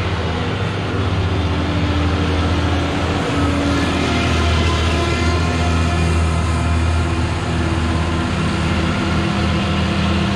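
John Deere tractor's diesel engine running steadily under load as it pulls a MacDon mower-conditioner through standing rye, growing louder as the tractor and mower pass close by.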